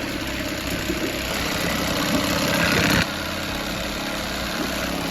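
Johnson 9.9 hp two-stroke outboard motor running. It revs up about two seconds in, then drops back suddenly to a steady idle about a second later.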